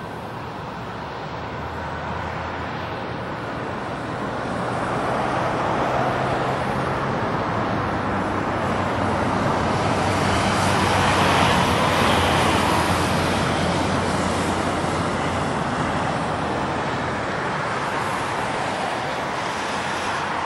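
Jet airliner's engines rushing during the landing rollout on a wet runway: a steady roar that swells to a peak about halfway through and then eases off, over a faint low hum.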